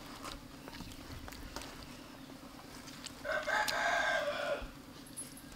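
A rooster crows once, a long call starting about three seconds in, over light taps of a knife cutting fish on a wooden chopping board.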